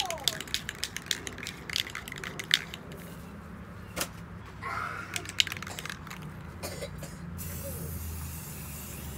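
Aerosol can of metallic gold spray paint being shaken, the mixing ball inside rattling in quick clicks, about five a second, for the first two and a half seconds. A couple of single clicks follow, and a steady hiss sets in near the end.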